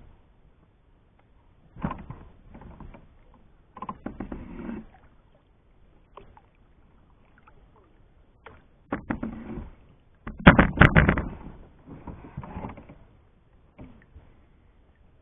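Kayak paddle strokes splashing in the water in irregular bursts, mixed with a few sharp knocks, the loudest about two-thirds of the way through.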